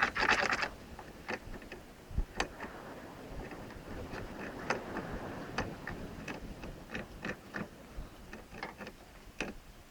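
A short rustle, then irregular light clicks and taps, several a second and uneven, from rabbits moving about and gnawing in their cage.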